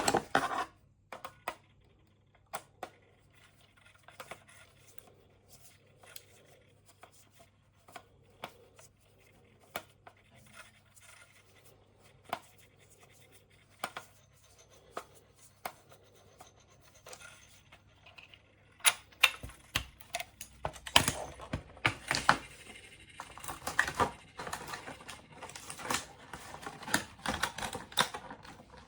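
Hard plastic parts of a toy alarm clock being handled, with scattered sharp clicks and taps. About two-thirds of the way through, the clicking gets denser and louder, mixed with rustling.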